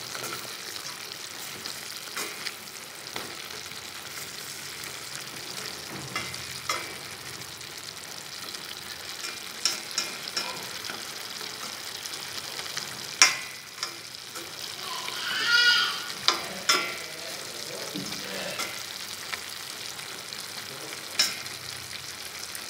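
Pork liver, onion and herbs sizzling as they are stir-fried in a stainless steel pan, turned with wooden chopsticks that knock sharply against the pan now and then. About fifteen seconds in, a brief high warbling sound stands out over the sizzle.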